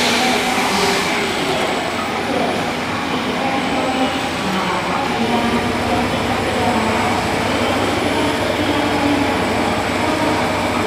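Plastic bag cutting and sealing machine running steadily, a continuous mechanical noise with a few faint held tones.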